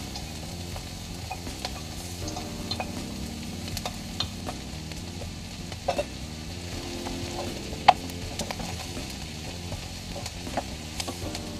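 Diced zucchini, onion and capsicum frying in a pan with a steady light sizzle while being stirred with a spoon; a few sharp clicks, the loudest about eight seconds in.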